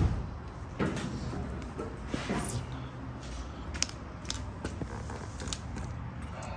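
Scattered light clicks and knocks, a few a second at most, over a low steady hum.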